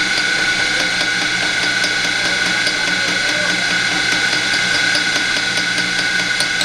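Electric motor of a kudzu-juice making machine running with a steady whine and hum, with faint light ticks over it.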